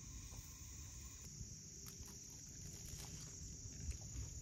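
Faint, steady high-pitched chorus of insects, with a low rumble underneath.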